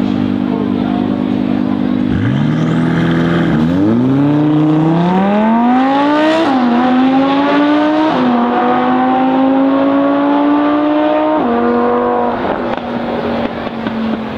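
Audi R8 V10 Performance's naturally aspirated V10 through a Capristo aftermarket exhaust, accelerating hard. After about two seconds at a steady note, the engine pitch climbs and drops back sharply three times as it shifts up through the gears, then fades near the end.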